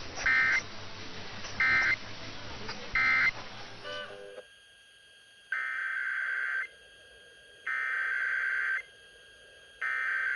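Emergency Alert System digital data bursts, each a harsh warbling buzz: three short bursts about a second apart, the end-of-message code closing a test. After a break, three longer bursts of about a second each follow, the SAME header opening the next test.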